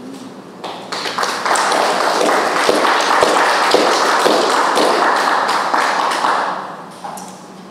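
A small audience applauding, swelling about a second in and dying away near the end.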